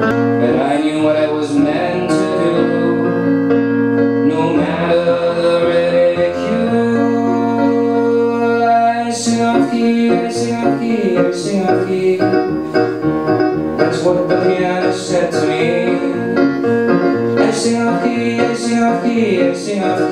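Electronic keyboard playing music: held chords at first, then a steady beat with regular sharp hits joining about nine seconds in.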